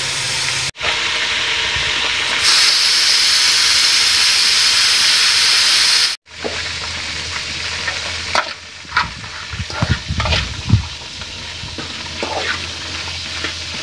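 Sliced okra frying in a skillet with a loud, steady sizzle. After about six seconds the sizzle is quieter, and a metal spoon stirs through the okra, scraping and knocking against the pan.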